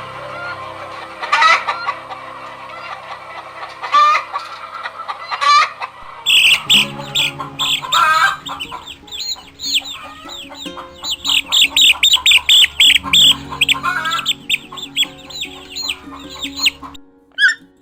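Chickens clucking, a few separate calls at first, then from about six seconds in a fast, busy run of high calls.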